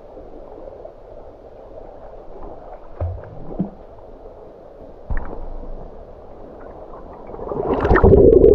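Muffled water sloshing with a few soft knocks, swelling near the end into loud gurgling and splashing as the camera goes under the water.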